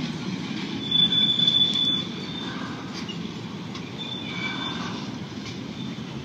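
Intermodal freight train of container well cars rolling past, a steady rumble of wheels on rail. A loud, high, steady wheel squeal starts about a second in and lasts over a second, with fainter squeals around four seconds in.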